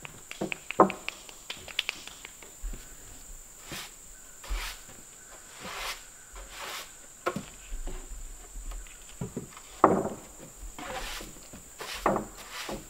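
Broom sweeping a wooden plank deck in irregular strokes, with footsteps and knocks on the boards; the sharpest knocks come about a second in and again late on.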